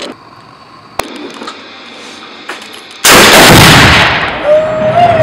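An exploding target going off: one sudden, very loud blast about three seconds in that dies away over about two seconds. A single sharp click comes about a second in.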